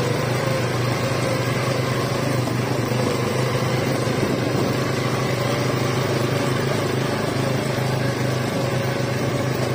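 ATV engines running at a steady cruising speed while riding over sand, a continuous even drone with a low hum.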